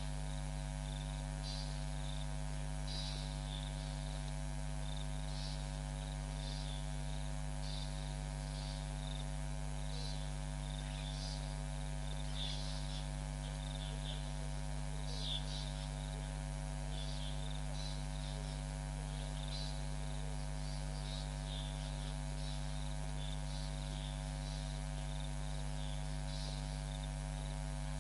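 Steady electrical mains hum on the camera's audio, with short high chirps of wildlife recurring every second or so.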